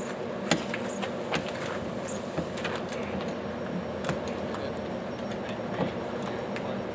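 A motor running steadily, with scattered sharp clicks and knocks over it.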